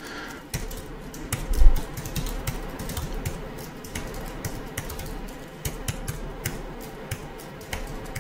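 Typing on a computer keyboard: a steady run of quick key clicks as text is entered into form fields, with one louder, dull thump about a second and a half in.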